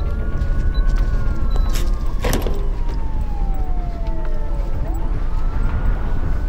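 A siren wailing in a slow rise and fall. It climbs at the start, sinks slowly over about four seconds, then climbs again near the end, over a steady low rumble. There is a single sharp knock a little over two seconds in.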